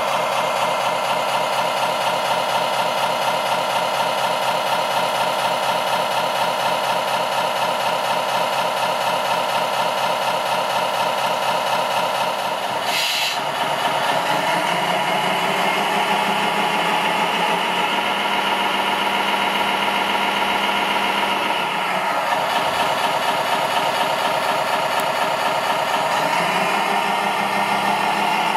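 Radio-controlled heavy-haul truck running steadily with an engine-like idling sound as it slowly tows a lowboy trailer loaded with a model excavator. About halfway through there is a short hiss and the running sound changes pitch pattern.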